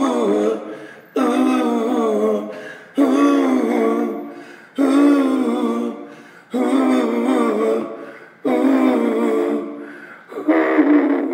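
A man's wordless sung 'ooh' notes through a TC-Helicon Harmony Singer pedal, which adds harmony voices. A new note starts sharply about every two seconds and fades before the next, six or so in all.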